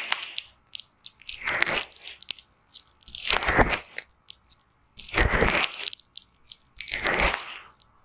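Fingers rubbing and pressing a thick white foam layer over the silicone ear of a binaural microphone, heard right at the mic: about four crackling strokes, one roughly every two seconds, with small pops between.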